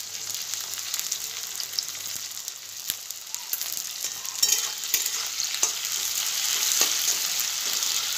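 Chunks of onion and green capsicum sizzling in hot oil in a metal wok, with a spatula scraping and clicking against the pan as they are stirred. The sizzle grows louder from about halfway through.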